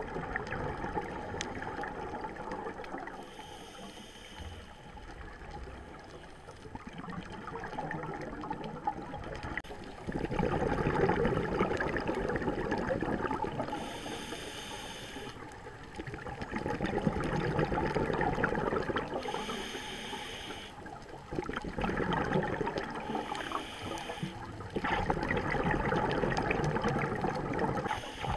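A scuba diver breathing through a regulator, heard through an underwater camera housing: exhaled bubbles rush and gurgle in surges of a few seconds, about four of them in the second half, with a short hiss of inhalation in the quieter gaps between.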